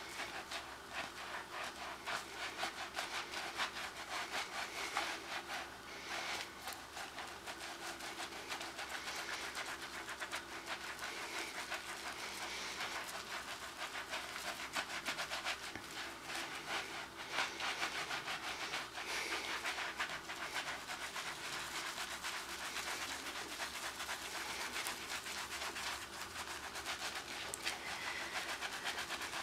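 Hands being scrubbed hard: a fast, continuous scratchy rubbing of many quick strokes, swelling and easing a little now and then.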